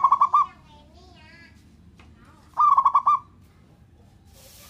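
Zebra dove (perkutut) cooing: two short phrases of rapid staccato coo notes, one right at the start and another about two and a half seconds in, each lasting about half a second.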